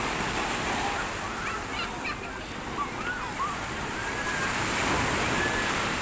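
Sea waves washing onto a shore: a steady rushing surf noise that swells slightly near the end.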